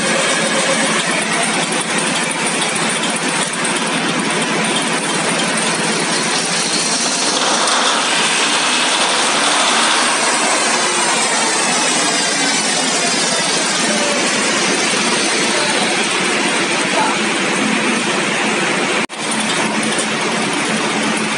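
Deutz 620-series V12 engine running, a loud steady mechanical roar that cuts out for a split second near the end.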